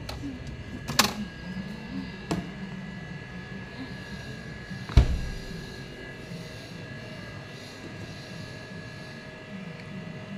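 A steady mechanical hum runs under the whole stretch. Things are handled at the open refrigerator with a few sharp clicks around the first two seconds, and there is one loud thump about five seconds in.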